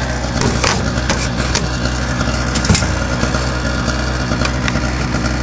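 Small 800-watt portable gas generator running steadily at idle. Several sharp clicks and knocks from work inside the metal mailbox sit over it, the loudest nearly three seconds in.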